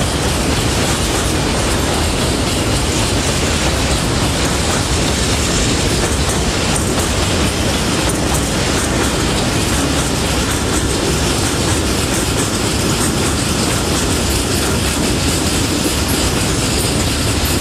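Freight train of tank wagons and tarpaulin-covered wagons passing at a steady speed: its wheels rumble steadily on the rails, with occasional faint clicks.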